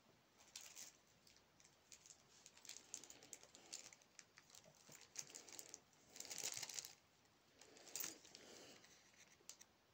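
Faint rustling and crinkling of a small plastic bag being handled, with scattered light clicks, the loudest rustle a little past six seconds in.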